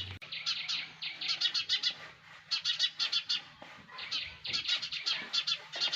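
Sparrows chirping: quick runs of short, high, repeated chirps, coming in clusters with brief gaps between them.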